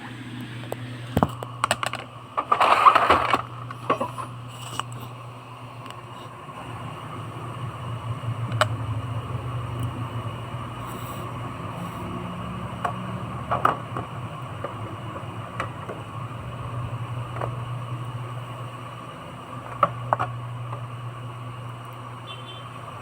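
Scattered clicks and a brief louder scraping of plastic printer parts being handled, about three seconds in, over a steady low hum.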